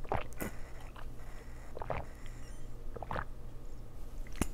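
Drinking water from a plastic bottle: about five separate gulping swallows, unevenly spaced, heard close up.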